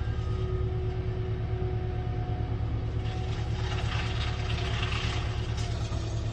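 Cat 299D3 compact track loader's diesel engine running steadily under load with its mulcher attachment, a deep continuous rumble with a steady hum; a higher hissing, grinding layer swells in the middle and fades.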